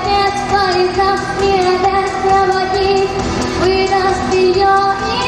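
Music: a young singer's voice carrying a melody with long held notes over the song's accompaniment.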